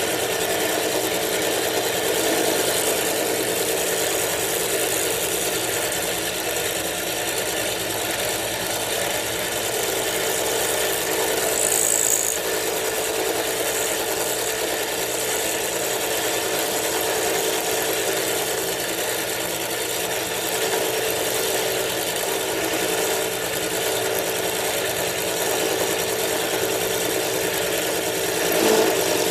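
Milling machine running steadily while cutting the lock relief into a frame lock knife's lock bar, with a brief high-pitched scrape about twelve seconds in.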